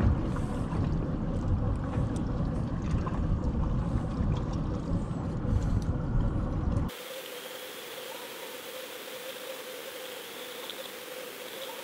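Rumbling wind and water noise on an open boat deck. About seven seconds in it cuts suddenly to the quieter, muffled hiss of a submerged underwater camera with a faint steady hum.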